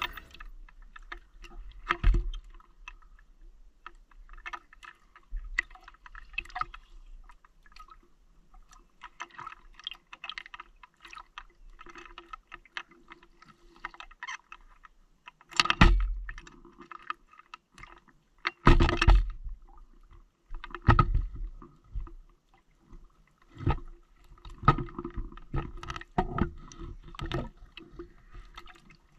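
Underwater scuba diving sound: a diver's regulator breathing out, its exhaust bubbles rushing past in loud bursts every few seconds, with faint crackling and a faint steady hum between breaths.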